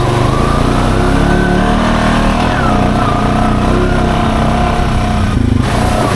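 Honda Foreman ATV's single-cylinder engine pulling under load in second gear through a mud hole, its pitch rising and falling with the throttle. The engine sound drops out briefly about five and a half seconds in.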